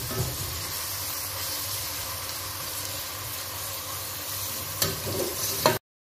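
Finely sliced onions frying in about a cup of hot oil in a pan, a steady sizzle as they soften toward light golden brown. A couple of sharp clicks come near the end, then the sound cuts off abruptly.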